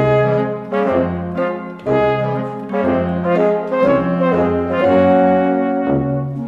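Instrumental theme music led by brass: a melody over a bass line that alternates between two low notes about twice a second.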